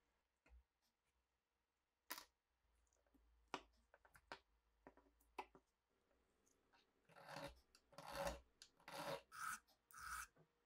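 A few light clicks as small metal knife parts are handled on a wooden bench, then, from about seven seconds in, five rhythmic strokes of a hand file rasping across the metal end of an old pocket knife.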